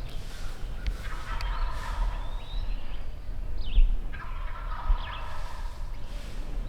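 Wild turkeys gobbling close by, two rattling gobbles about three seconds apart.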